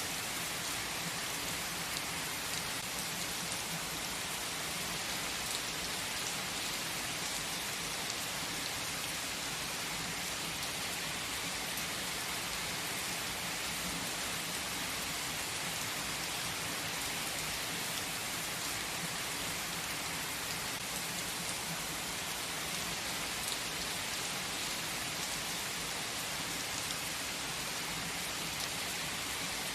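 Steady rain falling: a constant hiss with faint scattered drop ticks, unchanging throughout.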